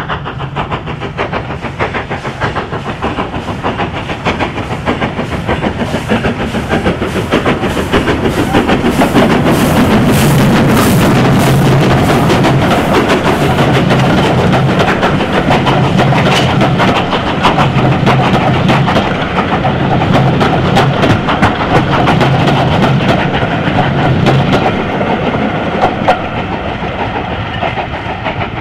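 LNER B12 4-6-0 No. 8572 steam locomotive working a passenger train past, with rhythmic exhaust beats and the wheels clicking over the rail joints. It grows louder to a peak from about eight to sixteen seconds in as the engine and coaches go by, then fades as the train draws away.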